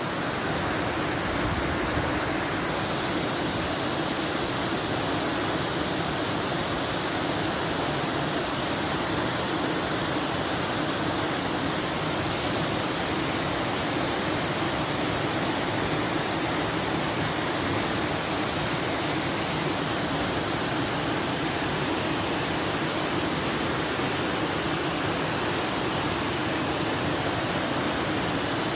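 Waterfall pouring, a constant steady rush of falling water.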